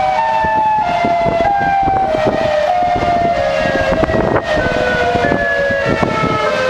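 Several outdoor tornado warning sirens sounding at once, overlapping steady tones at slightly different pitches that slowly drift downward, with gusty low noise underneath.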